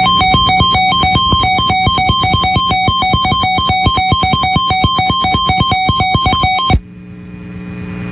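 Emergency alert attention tone: rapid, pulsing electronic beeps alternating between two pitches, like a ringtone, announcing the next warning. It cuts off suddenly about seven seconds in, leaving a low hum.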